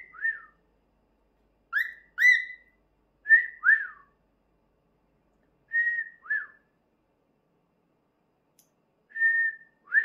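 Lutino cockatiel whistling in short two-note phrases, mostly a level note followed by a falling one. The phrase is repeated about five times with pauses between.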